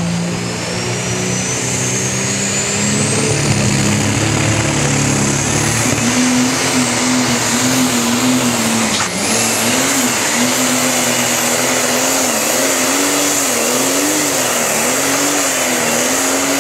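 Pro Stock pulling tractor's turbocharged diesel engine at full throttle, hauling the weight-transfer sled. A high whine climbs over the first few seconds. After that the engine note wavers up and down over and over as the tractor pulls, with a brief dip about nine seconds in.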